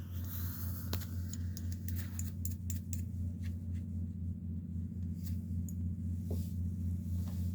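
A steady low hum, with scattered light clicks and rustles over it.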